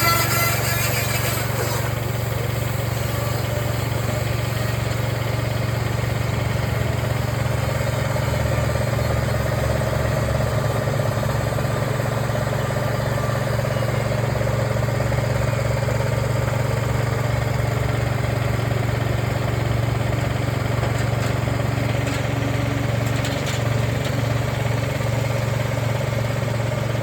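A motor running steadily with a low, even hum, from the dryer vent cleaning equipment.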